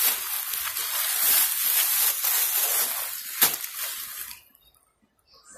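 Paper food wrapper rustling and crinkling as it is handled, with one sharp click about three and a half seconds in. The rustling stops shortly before the end.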